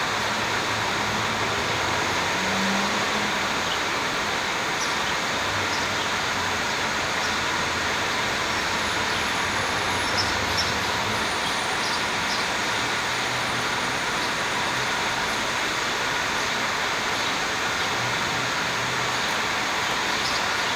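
Steady roar of road traffic, with a few faint, short bird chirps over it.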